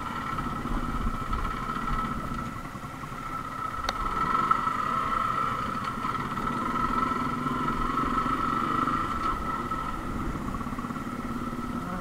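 Motorcycle engine running steadily while the bike is ridden along a rough dirt track, with a single short click about four seconds in.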